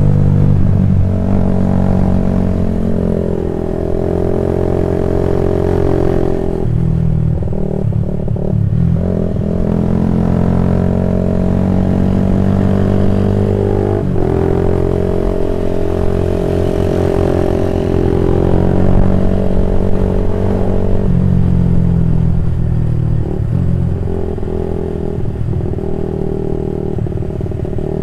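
Old Honda CB150R single-cylinder engine running through an aftermarket BPRO Racing 26 cm racing silencer while being ridden. The revs climb and drop several times, about a third, halfway and three-quarters of the way through.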